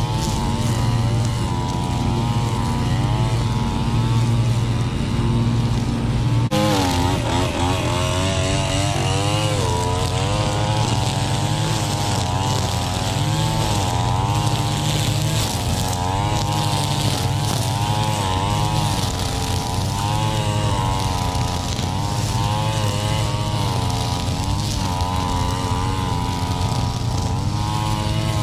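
Gas string trimmer running while cutting tall, overgrown grass, its engine pitch wavering up and down as it is throttled, over a steady lower engine drone.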